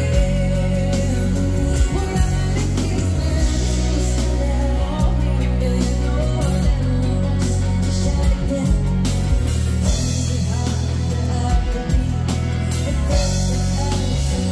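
Live band music: a woman singing into a microphone over drum kit, keyboards and guitar, with a heavy, steady bass line and a regular drum beat.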